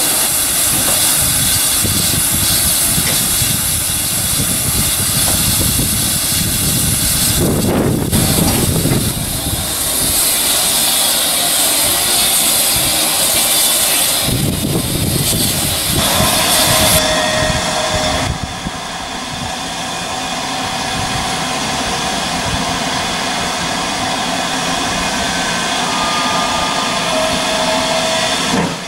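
Steam hissing loudly from GWR 2884 class 2-8-0 No. 3802 standing at the platform, with wind buffeting the microphone. About seventeen seconds in it gives way to a quieter, steady hiss heard from further off.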